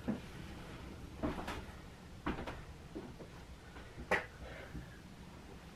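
A few light knocks and clicks, spaced roughly a second apart and the loudest about four seconds in, over low room noise: things being handled and set down in a small room.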